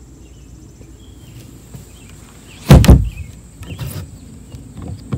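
The livewell lid of an aluminum fishing boat swung shut, landing with a loud double thud about three seconds in, followed by a few lighter knocks.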